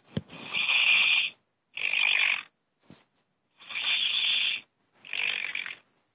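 Snoring heard through a phone: four noisy snoring breaths, each under a second long, coming about every second and a half.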